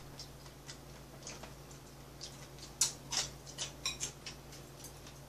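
Light clicks and taps of chopsticks and a spoon against bowls and dishes, more frequent and louder about three to four seconds in, over a steady low hum.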